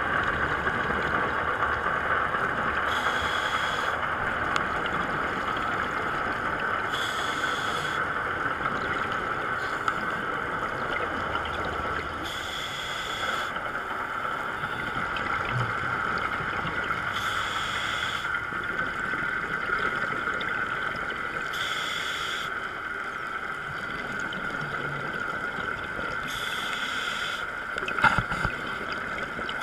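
Muffled underwater sound heard through a GoPro's waterproof housing: a steady hiss with a scuba regulator's breathing hiss coming back about every four to five seconds. A few sharp knocks near the end.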